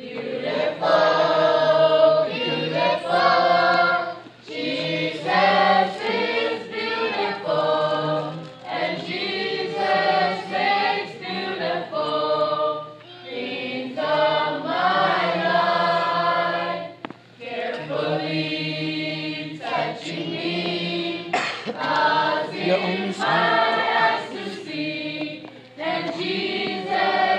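Choir of children and adults singing a Christian song in phrases, with short pauses for breath between them.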